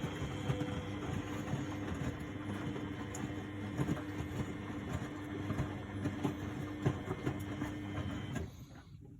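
1999 Miele Novotronic W828 front-loading washing machine in its wash phase, the drum turning with a steady motor hum and irregular knocks from the tumbling load. Near the end the drum slows and the running dies away as the motor stops for a pause between tumbles.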